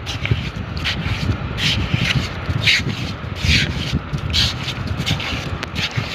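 Rhythmic digging into wet beach sand to reach a sea worm's burrow, each stroke a short gritty scrape with a dull thud, about one a second.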